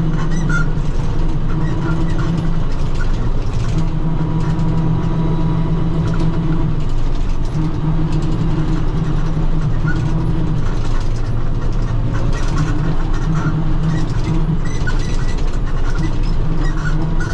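Tractor engine running steadily while driving a 6-foot International rotary cutter (bush hog) through grass; the low drone shifts slightly in strength every few seconds.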